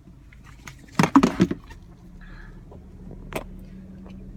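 A loud, brief clatter about a second in, then a vehicle engine idling with a steady low hum.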